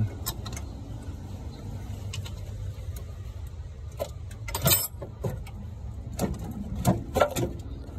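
Dodge D300 truck's inline-six engine turning over on the starter without catching: a steady low churning, with a few sharp clicks and knocks near the middle and towards the end.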